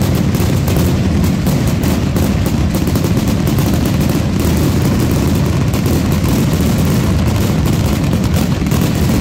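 Mascletà fireworks: a loud, dense barrage of firecracker and shell explosions, the bangs coming so fast that they run together without a break.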